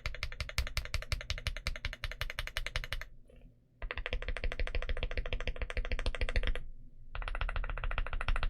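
Fast typing on a mechanical keyboard fitted with 'Sunny Side Up' frankenswitches (linear switches with Gateron Smoothie housings and springs and Gateron Yellow stems, in stock form). The keystrokes come in a quick continuous run, break off for a moment about three seconds in, and pause briefly again about seven seconds in.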